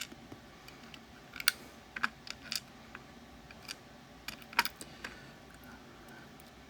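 Scattered light clicks and taps of small metal lock parts from a partly disassembled Medeco Biaxial camlock being handled, irregular and spaced out, with the sharpest click a little past halfway.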